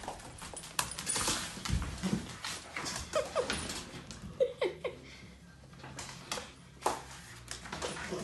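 Dog whimpering in a few short, high whines, among scattered clicks and knocks.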